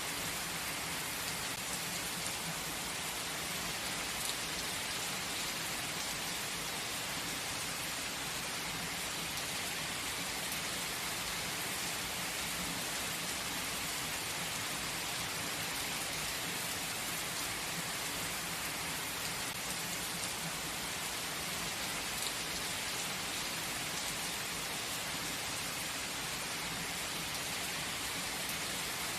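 Steady gentle rain falling, an even hiss with scattered drop ticks.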